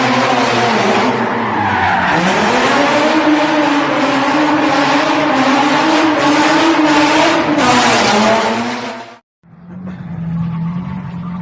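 Car engine revving hard while drifting, its pitch dipping and climbing, with tyres squealing and skidding. The sound cuts off abruptly about 9 seconds in and gives way to a quieter, steadier engine note.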